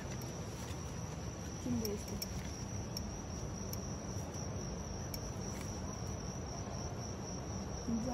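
Insects chirring: a steady, high, single-pitched trill that does not let up, with a few faint clicks.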